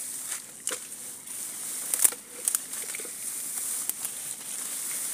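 Leaves and stems rustling and crackling close against the phone as it moves through leafy plants, in scattered sharp crackles over a steady high hiss.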